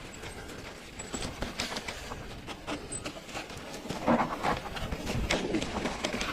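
Mountain bike clattering over a rough trail: a rapid, irregular run of clicks and knocks from the tyres, chain and frame, busiest about four seconds in.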